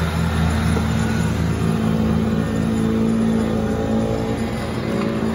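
Kubota LX3310 compact tractor's three-cylinder diesel running under load, driving its front-mounted snowblower as it throws snow. The engine pitch rises slightly around the middle, and the sound eases a little near the end as the tractor moves off.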